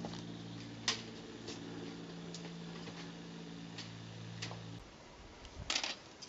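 Footsteps on rough, rocky ground: sharp, irregular clicks about once a second, with a louder cluster near the end. Underneath is a steady low hum that cuts off abruptly about three-quarters of the way through.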